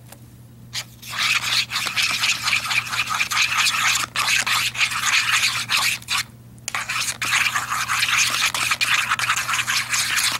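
Plastic spoon stirring wet baby cereal and water into a thick paste in a bowl, a rapid scratchy scraping against the bowl that starts about a second in and breaks off briefly twice.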